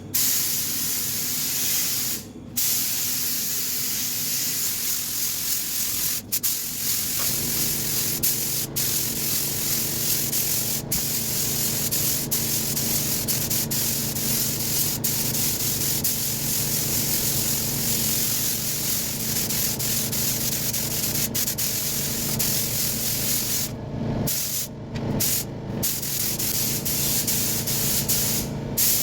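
Spray gun hissing with compressed air as basecoat colour is sprayed on, cutting off briefly several times when the trigger is released. A low steady hum runs underneath from about seven seconds in.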